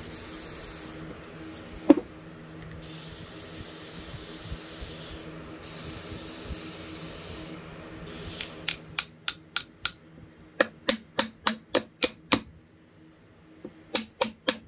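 WD-40 aerosol sprayed in several hissing bursts onto the seized worm screw of an adjustable wrench. Then a small hammer taps quickly on the wrench, about five taps a second, stopping briefly and starting again near the end, to free the frozen adjustment.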